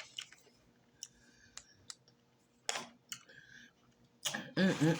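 Wet mouth clicks and lip smacks from eating fufu with okra stew, scattered sharp ticks with a louder one a little past halfway. Near the end a short hummed voice sound.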